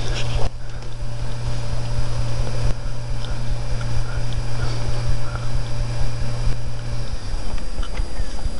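Steady low hum over an even hiss, with a few faint ticks; the hum drops away about seven seconds in.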